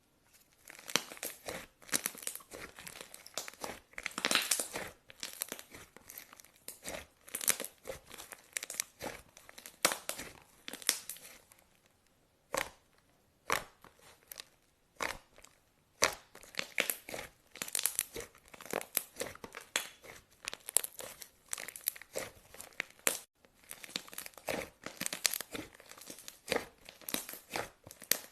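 Clay slime being mixed by hand, giving dense, irregular sticky crackles and pops. About twelve seconds in it thins to a few single pops for several seconds, then the crackling picks up again.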